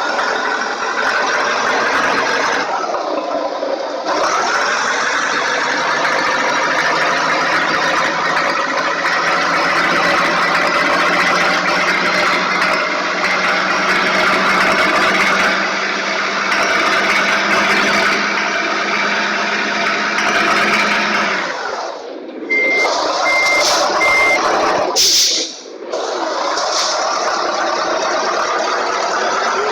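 A heavy vehicle's engine runs steadily and loud. About two-thirds of the way through it drops away, three short evenly spaced reversing beeps sound, and then comes a short, loud hiss like an air-brake release before the engine noise returns.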